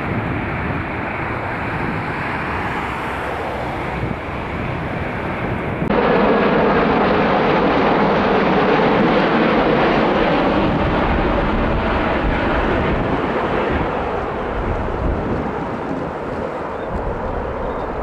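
Jet airliner engine noise: a twin-engine airliner climbing away after takeoff, a steady noise. About six seconds in it cuts abruptly to the louder engine and airflow noise of an Egyptair Boeing 787 on final approach to land, easing off gradually toward the end.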